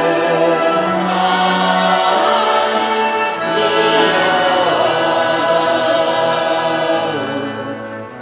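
Slow background music with layered, sustained tones that swell and fade, dipping briefly just before the end.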